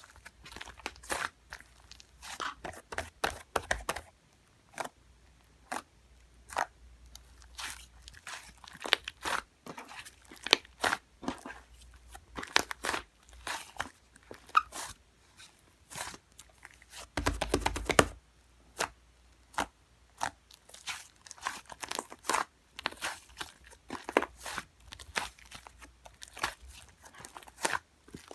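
Fluffy clay slime being pressed, stretched and poked by hand, giving off irregular crackling pops and snaps. A longer, denser stretch of crackling comes about seventeen seconds in.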